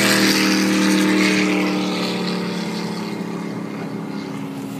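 A speedboat running at speed, a steady engine note over the rush of wind and water, fading steadily as the boat pulls away.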